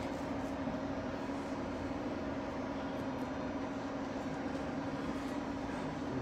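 Steady low hum with a constant drone tone under a faint hiss, with a few faint ticks.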